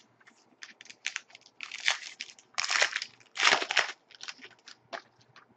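A foil trading-card pack wrapper crinkling and tearing as it is opened by hand. It comes in a series of short crackly bursts, the loudest about two to four seconds in.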